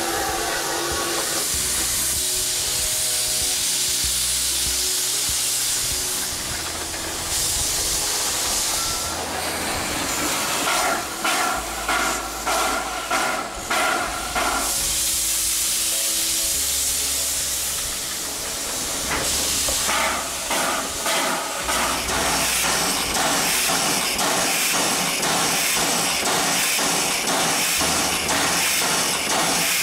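Steam locomotive standing with steam hissing loudly and steadily. Twice there are runs of rhythmic beats about two a second, and near the end a faster rhythmic clatter.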